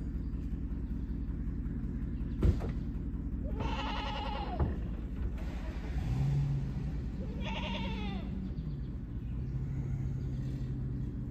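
A pickup truck's engine runs steadily under two drawn-out calls from a Holstein cow shut in a stock trailer, each call rising and then falling in pitch. A single sharp knock comes just before the first call and is the loudest sound.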